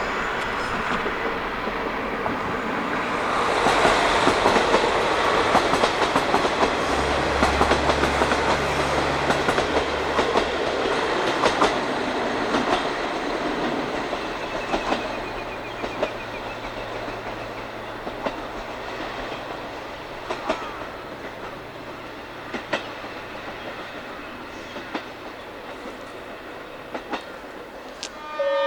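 A diesel railcar train of KiHa 40 and KiHa 48 cars running along the track, its wheels clacking over the rail joints. It is loudest a few seconds in and then slowly fades away.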